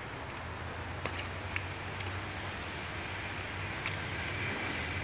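Outdoor ambience: a steady low rumble with a few faint clicks, and a faint thin high tone in the last couple of seconds.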